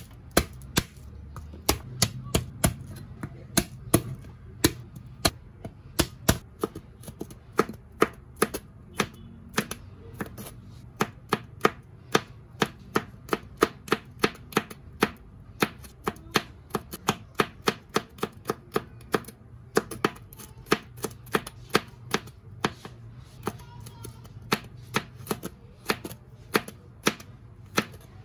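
Chef's knife chopping garlic cloves on a plastic cutting board: a steady run of sharp knocks, about two to three a second, as the blade strikes the board.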